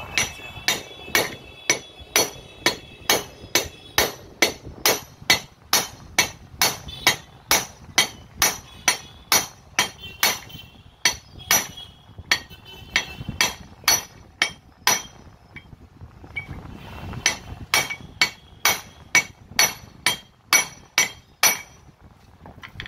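Hand hammer tapping steadily on the tool-holder barrel of a 5 kg demolition hammer, driving the part into its gear housing. The blows come about two a second with a short metallic ring, stop for about two seconds around two-thirds through, then carry on.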